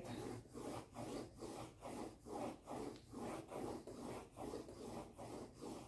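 Coloured pencil scratching across drawing paper in quick, even back-and-forth shading strokes, about three a second.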